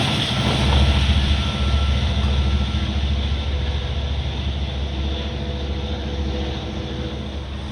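A Long Island Rail Road diesel train hauled by DE30AC locomotives moving away after passing a grade crossing. Its low engine hum and rolling noise fade steadily.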